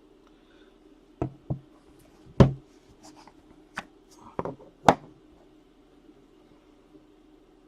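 Trading cards and their holders being handled and set down on a table: about six sharp taps and clicks in the first five seconds, the loudest two about two and a half seconds in and just before the five-second mark.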